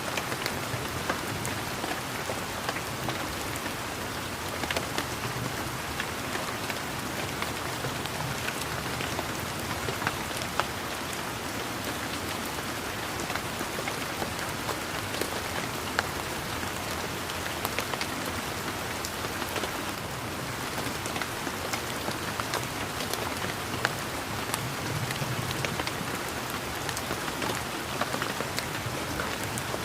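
Steady rain falling, with many separate drops ticking throughout as small sharp clicks over an even hiss.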